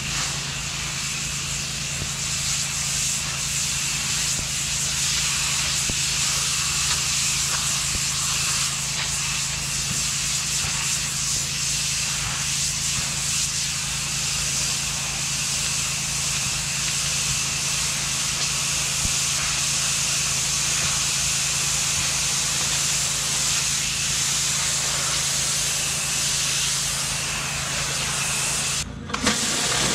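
High-pressure water jet from a pressure washer wand hissing steadily as it blasts grime off a concrete patio, over a steady low hum from the pressure washer. The sound briefly cuts out near the end.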